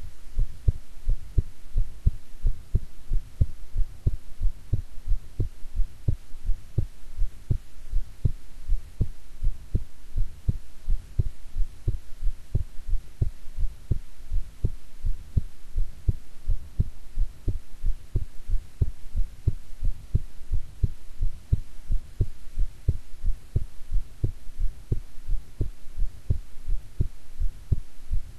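A woman's heartbeat heard close up through the chest, a regular train of low thumps, under a faint steady hum.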